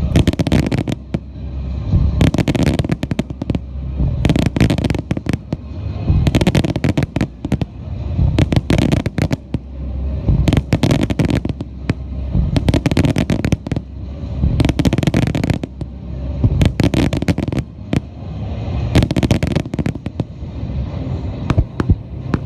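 Wide starmine fireworks display: dense volleys of sharp shell bursts, the bangs coming in waves about every two seconds.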